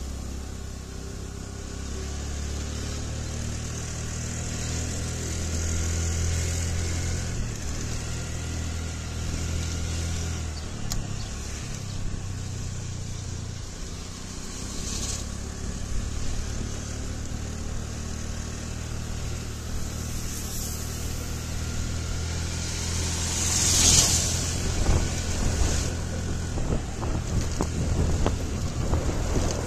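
Motor scooter running steadily while being ridden, a constant low engine hum under a rushing hiss. There is a short loud rush about 24 seconds in, and uneven low buffeting in the last few seconds.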